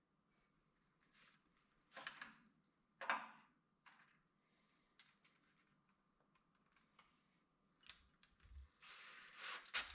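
A few light knocks and clicks of metal parts being set down and handled on a wooden bench. About nine seconds in, a cordless drill starts up, driving a screw through a lathe faceplate into a birch bowl blank.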